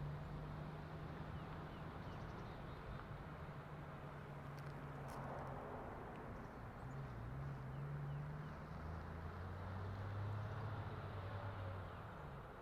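Car engine running at low revs, a steady low hum that shifts down in pitch partway through and fades away near the end as the car drives off.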